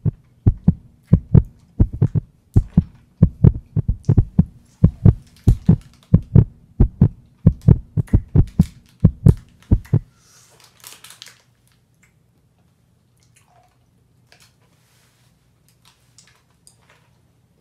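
Heartbeat sound effect: loud paired thumps, about one and a half beats a second, over a low hum, stopping about ten seconds in. Then faint crinkling of a candy packet being handled.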